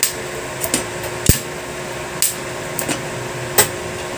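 Stick-welding rod touched and scratched against a steel motorcycle hub, giving a handful of short, irregular snaps of arc striking that never settle into a steady arc, over the steady hum of a portable welding machine. The rod keeps sticking and spluttering, which is typical of a beginner failing to strike and hold an arc.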